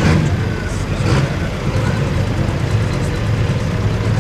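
Turbocharged diesel engine of a Limited Pro Stock pulling tractor running steadily at the starting line, ready to pull.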